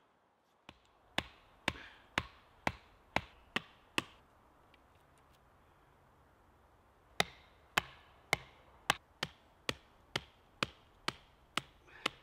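Wooden stakes being driven into the forest floor by striking their tops with an axe. Sharp knocks about two a second: a run of about seven, a pause of about three seconds, then about eleven more.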